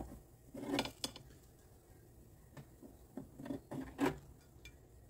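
Scattered clinks and scrapes of a metal fork against an air fryer oven's wire mesh rack as cooked steak is lifted onto a plate, a handful of short knocks with quiet gaps between.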